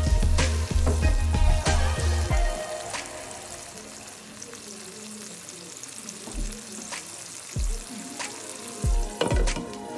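Watery tomato and cabbage stew sizzling in a non-stick wok while a silicone spatula stirs it. Background music with a deep beat plays over the first couple of seconds, then the sizzling goes on more quietly with a few soft thuds.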